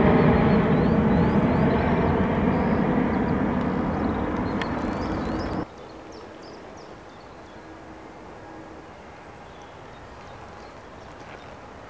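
Jet airliner going by, its engine noise fading steadily, then cut off abruptly about five and a half seconds in. A quiet outdoor background with a few faint chirps follows.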